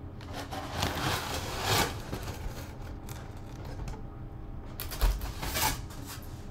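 Cardboard presentation box being opened by hand: its lid rustles and scrapes as it is lifted and folded back, with a thump about five seconds in.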